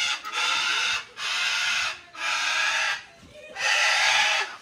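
Blue-and-gold macaw screeching: four harsh squawks, each just under a second long, with short gaps between them, the first already underway at the start.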